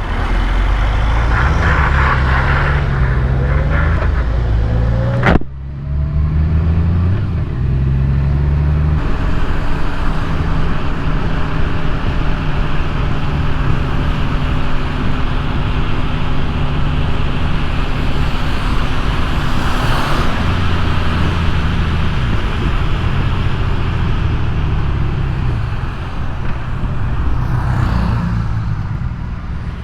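2018 Honda Gold Wing's flat-six engine running under way, its note stepping up and down as speed changes, over steady wind and wet-road tyre noise. A single sharp click about five seconds in.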